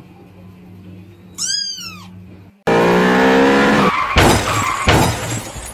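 A kitten gives one short, falling meow. After a sudden cut, a much louder rush of noise with a low droning tone follows, then several sharp thumps as two cats scuffle and skid on a tiled floor.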